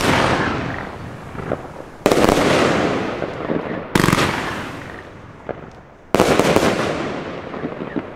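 Alpha Edition fireworks battery firing aerial shells: four loud bangs about two seconds apart, each fading away slowly, with a few small pops in between.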